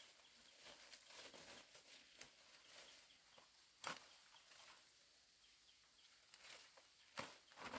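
Near silence with a few faint, brief knocks or rustles, the clearest about four seconds in and again shortly before the end.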